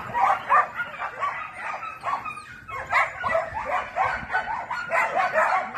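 Dogs playing, with quick high-pitched yaps and barks coming several times a second and a brief lull a little past the middle.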